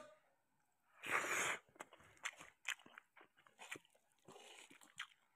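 A person chewing a mouthful of rice and canned sardines in tomato sauce: soft, scattered wet mouth clicks, with one short louder hiss about a second in.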